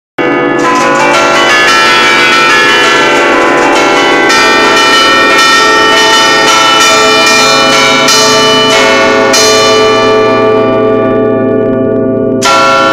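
A set of church bells in A (La2), cast by the Capanni foundry, struck from a baton keyboard in the Bergamasque 'allegrezza' style: a fast, dense run of melodic bell strikes played four-handed, the bells ringing on over each other. About ten seconds in the strikes thin out and the ringing dies down, then quick strikes start again just before the end.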